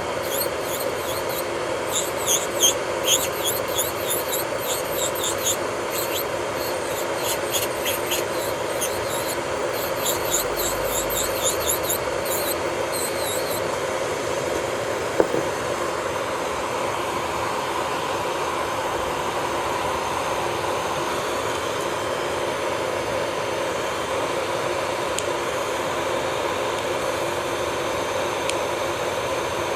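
Electric nail drill (e-file) running with a steady motor hum, its bit grinding against a fingernail in short repeated strokes for roughly the first half, then running on steadily.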